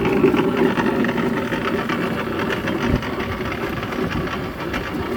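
Electric pipe threading machine running steadily, its motor and gearing turning with a dense mechanical whirr. A brief knock about three seconds in, after which it runs a little quieter.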